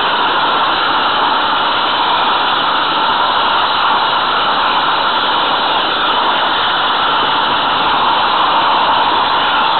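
Steady rushing hiss with no rhythm from a 16 mm scale garden-railway train running along the track, heard from a camera riding on the train.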